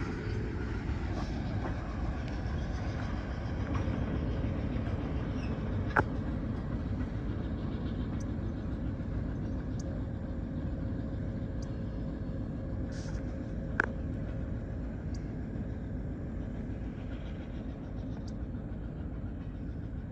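An EMD SW8 switcher locomotive's eight-cylinder diesel and its five empty tank cars rumbling steadily as the train moves away, slowly fading. Two sharp clicks sound about six and fourteen seconds in.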